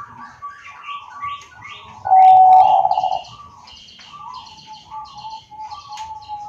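Zebra dove (Bangkok perkutut) calling, with a loud, trilled coo about two seconds in that lasts about a second. Small birds chirp high and fast throughout.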